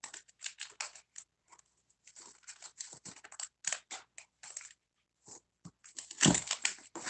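Paper shipping label being scratched and torn off a cardboard box in short, irregular rasping strokes, with a louder thump against the box about six seconds in.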